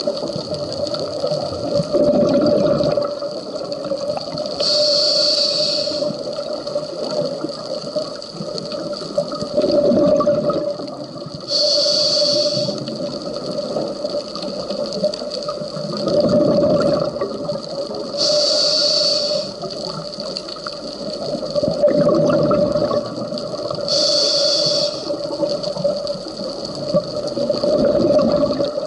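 Scuba diver breathing through a regulator underwater: a short hiss on each inhale and a bubbling rush of exhaled air, repeating about every six seconds. A steady hum runs underneath.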